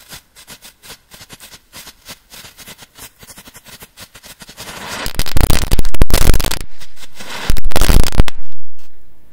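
Firecrackers going off: a run of small crackling pops, then two very loud blasts about two seconds apart, each dying away over about a second.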